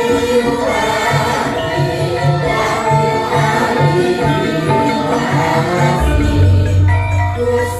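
Javanese gamelan music playing with a steady beat; a deep held low tone comes in about six seconds in.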